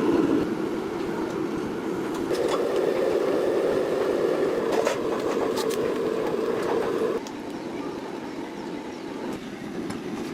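A power tool running steadily at a truck tyre repair. Its sound steps up about two seconds in and drops about seven seconds in.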